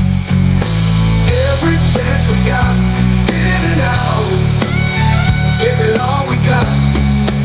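Rock music with a heavy bass-guitar line stepping through notes, and a melody bending up and down above it.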